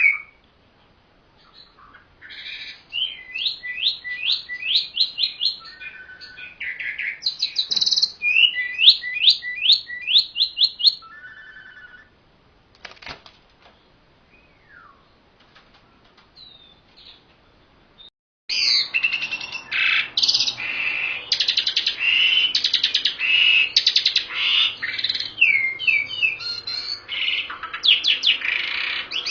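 An Asian pied starling and a white-rumped shama singing: bursts of fast, rapidly repeated high notes, then a lull of about six seconds with only a few faint notes, then denser, louder song that starts suddenly about two-thirds of the way through.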